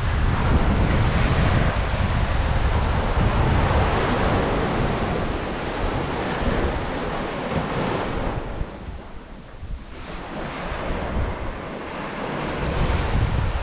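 Sea surf washing onto a sandy beach, mixed with wind buffeting the microphone as a low rumble. The wash eases off briefly past the middle, then builds again near the end.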